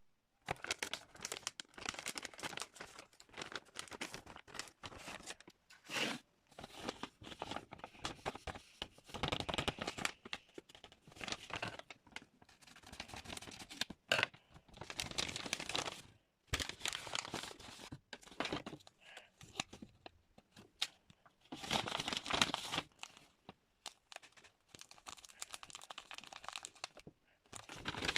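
Blind box packaging being torn open and crinkled by hand, in irregular bursts of tearing and rustling with short pauses between.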